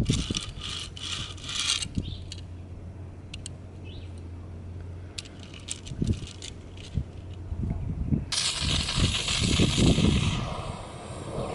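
Rattling and clinking of small hard objects being handled. About eight seconds in, a gas torch with an oxygen supply lights and runs with a steady hiss and low rumble.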